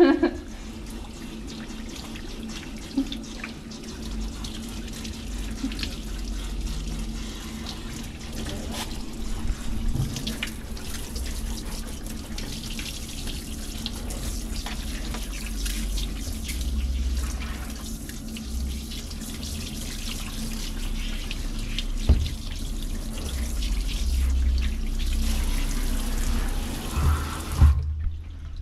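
Handheld shower sprayer running water over a small dog in a grooming tub: a steady spray and splash, with the water cutting off abruptly near the end.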